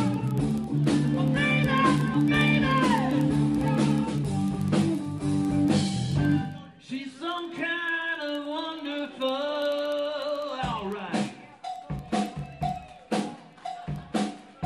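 Live band playing, with drum kit, electric guitar and singing. About six and a half seconds in, the low end drops out, leaving bending guitar or vocal lines. After that come sparse drum hits over a held note.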